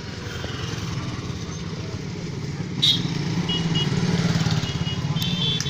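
A vehicle engine running steadily, getting louder about halfway through, with a sharp knock about three seconds in and a few short high-pitched beeps.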